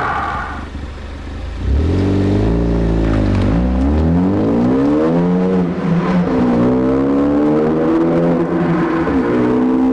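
Ford Focus ST's turbocharged 2.0-litre four-cylinder engine and exhaust accelerating hard through the gears. The note comes in loud about two seconds in and climbs in pitch. It drops at an upshift about six seconds in, climbs again, and drops at another shift near the end.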